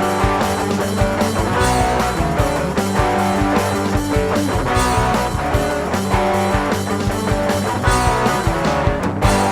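Rock band playing an instrumental passage: electric guitar chords over bass and a steady drum beat, with a heavy accented hit near the end.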